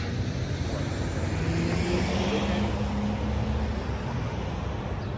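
Road traffic: a motor vehicle passing, its low hum swelling near the middle and fading, over a steady rumble.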